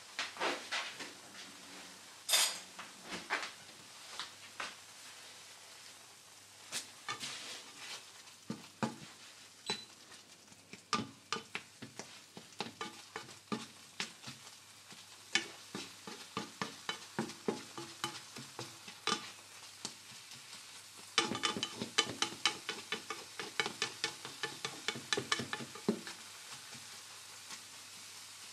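Black plastic slotted spatula stirring and scraping scrambled eggs and tomatoes in a non-stick frying pan, a string of quick irregular clicks and scrapes over a light sizzle. The strokes turn into a busy, rapid run about three-quarters of the way in.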